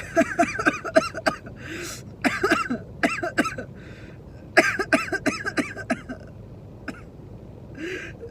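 A woman's voice in quick runs of short, high-pitched outbursts, with gasping breaths between the runs, as she reacts to a nasal swab.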